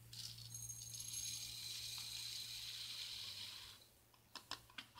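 Dry lentils poured from a plastic yogurt cup into a glass jar: a steady rattling hiss for about three and a half seconds, followed by a few light clicks.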